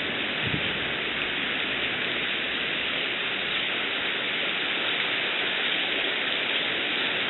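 Steady hiss of falling water.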